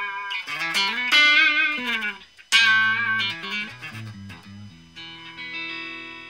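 Electric guitar played through a Raizin "Vintage Champe Box" effects pedal: a phrase of picked single notes with bends and vibrato, then a chord struck about five seconds in and left ringing.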